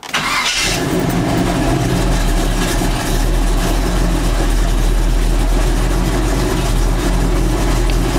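Cammed 355 small-block Chevy V8 in a 1984 Chevy C10 pickup catching right at the start, with a short noisy burst, then settling into a steady idle, heard from inside the cab.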